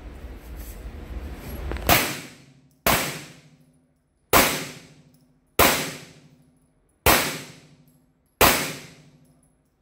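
Six shots from a Glock 17L 9mm pistol, fired one at a time about one to one and a half seconds apart, starting about two seconds in, each echoing briefly in an indoor range.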